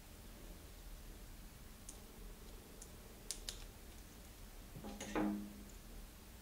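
Faint clicks of small parts being handled as the cage plates of a SRAM XX1 rear derailleur are fitted back together with its pulley wheels, with a brief louder rubbing sound about five seconds in.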